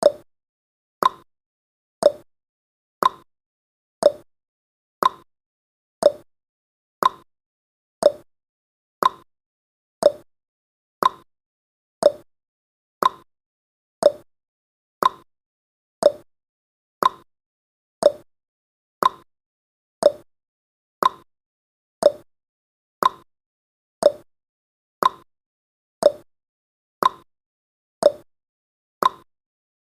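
Countdown timer's tick-tock sound effect: one short, sharp tick every second, alternating between a lower and a higher tick like a clock.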